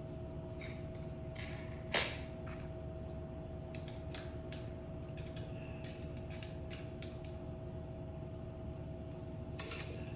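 Scattered small clicks and knocks of tools and bike parts being handled, with one sharp clink about two seconds in, over a steady hum.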